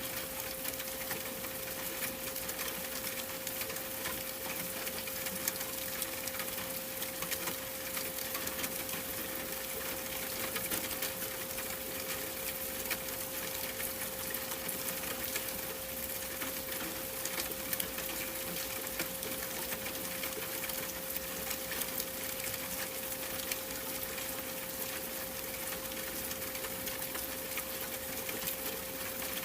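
A steady 528 Hz sine tone held without change over an even, rain-like hiss full of fine crackling ticks.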